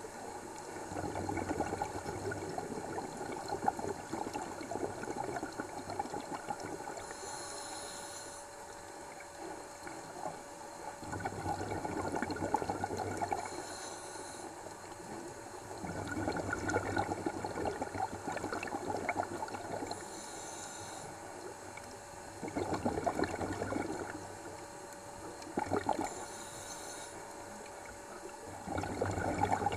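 Scuba diver breathing through a regulator underwater: bursts of bubbling exhalation every few seconds, with a short hiss of inhalation between them and a faint steady hum throughout.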